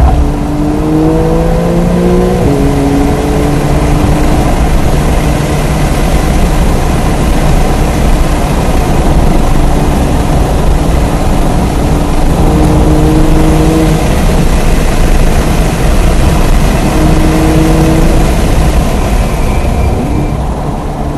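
Porsche 992 Carrera S's twin-turbo flat-six engine at full throttle on track, heard inside the car: the pitch climbs, drops sharply at an upshift about two and a half seconds in, then rises and falls again as the driver accelerates and lifts for corners. A loud, steady rush of wind and tyre noise runs underneath.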